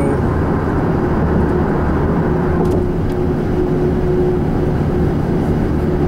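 Steady road and engine noise inside a vehicle's cabin while driving at highway speed: a low, even rumble with a faint steady whine.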